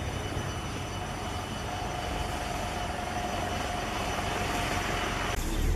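A motor vehicle's engine running steadily under a noisy rumble. A steady tone joins about two seconds in, and the sound changes abruptly shortly before the end.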